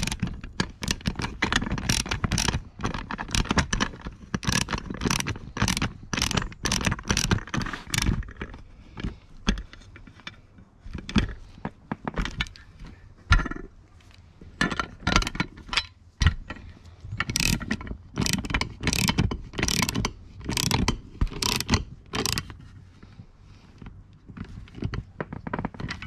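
Socket ratchet clicking in runs as M10 nylock nuts are tightened onto eyelet bolts through galvanised steel angle brackets. Between the runs the steel parts clink and scrape as they are handled.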